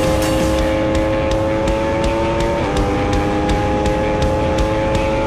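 Yamaha YZF-R1M's crossplane inline-four with an Akrapovic exhaust, pulling at full throttle with its note rising steadily. About two and a half seconds in, the note dips briefly for a quick upshift from fourth to fifth, then keeps climbing. A heavy rush of wind noise is mixed in.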